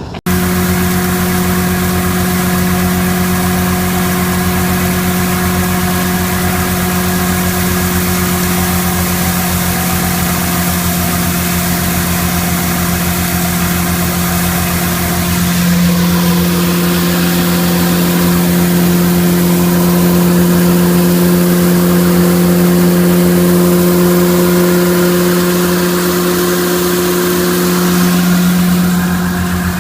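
1952 Mercury's flathead V8 running steadily at a high idle while the cooling system is tested for leaks, the engine note rising slightly about halfway through and settling back near the end.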